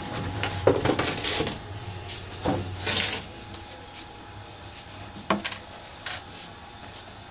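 Scattered clinks and knocks of small hard objects being picked up, moved and set down on a workbench, the sharpest a little after five seconds in.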